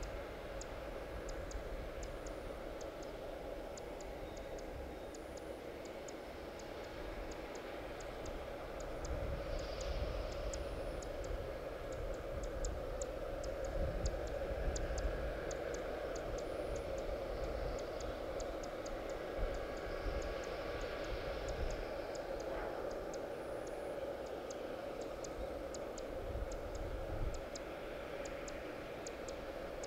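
Steady hum of a parked Boeing 787 airliner and its apron equipment, with swells of higher whine coming and going and scattered faint high ticks throughout.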